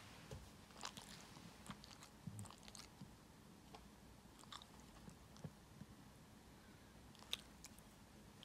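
Near silence broken by faint, scattered wet clicks and lip smacks from a drowsy Shiba Inu's mouth, irregular and a few seconds apart, the sharpest about seven seconds in.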